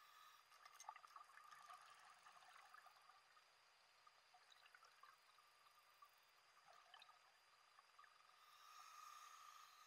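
Faint underwater bubbling and trickling from a scuba diver's exhaled bubbles, swelling near the start and again near the end, with a few light clicks from handling gear.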